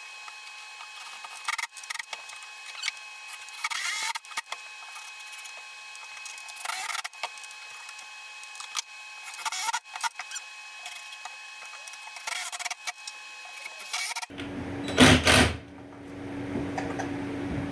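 Scattered knocks and clicks of wooden cross members being fitted into a table saw stand frame, over a faint steady hum. A couple of louder knocks come near the end.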